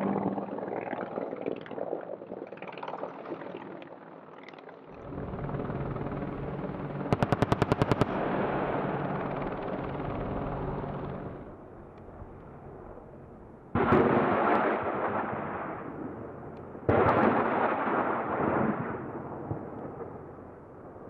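AH-64 Apache attack helicopter running, then a quick burst of about ten rapid cannon shots about seven seconds in, followed by two sudden loud blasts about three seconds apart, each trailing off over a couple of seconds, from rocket fire.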